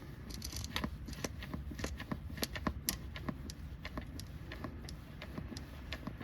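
Hand-operated fluid transfer pump being worked to push gear oil into a transfer case fill hole, giving a run of light, irregular clicks and ticks over a low steady hum.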